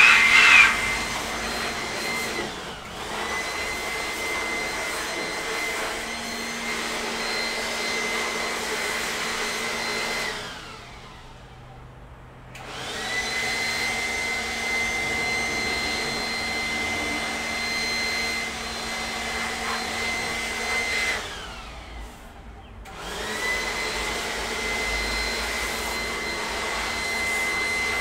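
Air blower cleaning dust out of an iMac, running in three long blasts with a steady high whine over a hiss. The sound stops briefly about ten and twenty-two seconds in, and each time it starts again the whine rises as the motor spins up. The loudest moment is right at the start.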